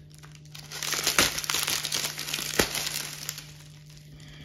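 Thin plastic bag crinkling as hands pull it open, loudest from about a second in to about three seconds, with a couple of sharp crackles.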